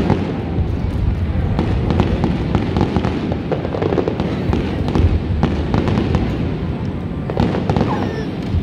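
Aerial fireworks display: a dense, continuous barrage of bangs and crackles over a steady low rumble.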